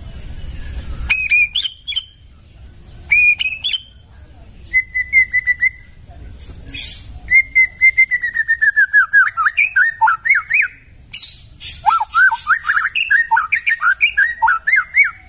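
White-rumped shama (murai batu) singing: short whistled phrases, then two long runs of quick repeated notes that wander down in pitch and back up.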